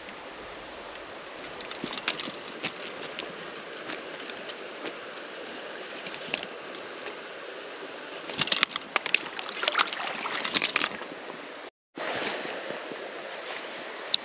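Creek water running steadily, with a burst of splashing and dripping from about eight to eleven seconds in as a trout is handled in a wet landing net.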